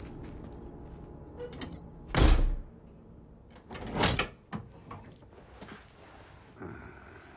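Cellar hatch door being moved: two loud scraping noises about two seconds apart, the first the louder.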